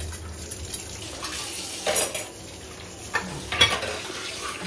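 Steel dishes and cutlery clattering during washing-up, with a few sharp clinks about two seconds in and again near three and a half seconds.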